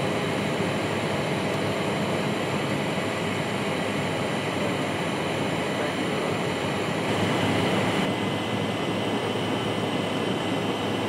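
Steady cabin noise of an Embraer 175 airliner in its climb after takeoff: airflow rush and the hum of its wing-mounted GE CF34 turbofans, heard from a seat beside the wing. It swells slightly about seven seconds in.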